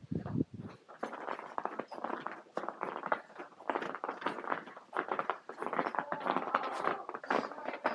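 Footsteps on ice, a dense, irregular run of crunching and scraping steps.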